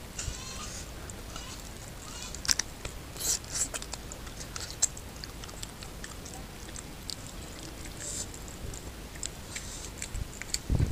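Close-miked eating by hand: wet chewing and lip smacks, and oily curry rice and goat head meat squelching and crackling as fingers pull it apart, with scattered sharp clicks. A dull thump near the end.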